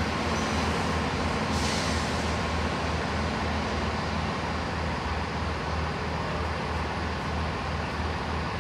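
Diesel train engine running steadily with a low pulsing hum. A short hiss of air comes about one and a half seconds in.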